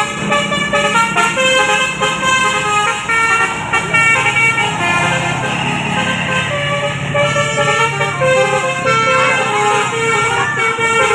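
Bus 'telolet' basuri multi-tone horn playing a melody of stepped notes, loud and continuous, over a low engine hum.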